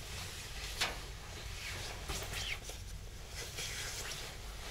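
Fabric of a padded winter jacket rustling and swishing as it is pulled on over the shoulders. The sharpest swish comes a little under a second in, with more rustles later.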